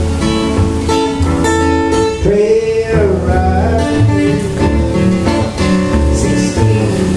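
Acoustic guitar strummed in a steady rhythm, with keyboard accompaniment.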